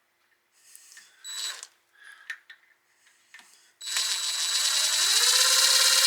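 A few light handling clicks, then about two-thirds of the way in an electric drill starts and spins up to a steady whine, its pitch rising a little before settling, as a freshly hand-sharpened drill bit is put to work.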